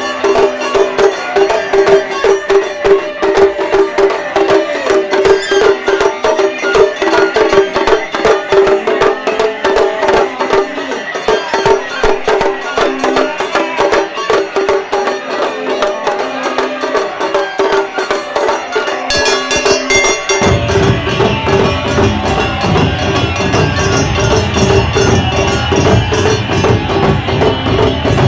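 Live Japanese taiko ensemble playing fast, dense drum strikes over a steady held note. Deep low drum sounds join about twenty seconds in.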